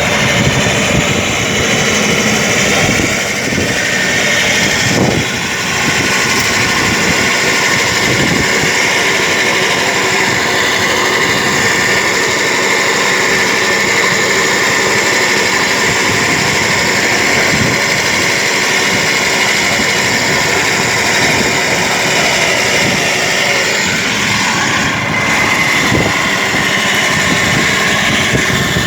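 Petrol lawn mower's small engine running steadily at a constant speed.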